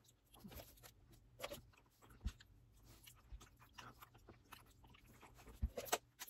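Faint close-up mouth sounds of a person biting and chewing a thick slab of milk chocolate: scattered small clicks and smacks, with a few louder clicks near the end.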